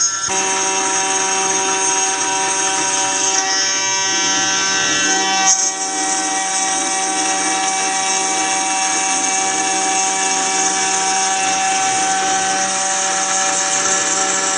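CNC milling spindle turning a 6 mm carbide end mill through aluminium plate on a contour cut: a loud, steady high whine made of several held tones, with the high tone shifting briefly about three and a half and five and a half seconds in.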